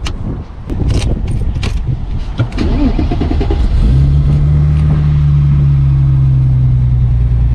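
Car door clicks and knocks as it is opened and someone gets in, then the starter cranks and the Porsche 993's 3.6-litre air-cooled flat-six catches about four seconds in and settles into a steady idle.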